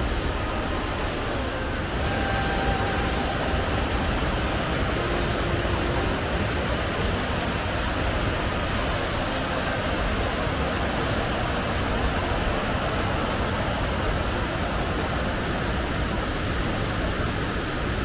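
Steady rushing of a waterfall cascading over rock, growing a little louder about two seconds in.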